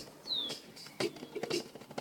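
Drum struck in quick, sharp strokes that pick up again about a second in after a brief lull. A short high falling chirp or squeak sounds about a third of a second in.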